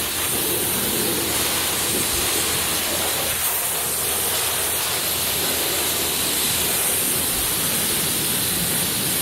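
Self-service car wash high-pressure wand spraying water onto a BMX bike: a steady, unbroken hiss of spray.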